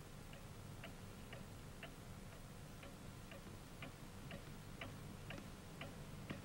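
A clock ticking faintly and evenly, about two ticks a second.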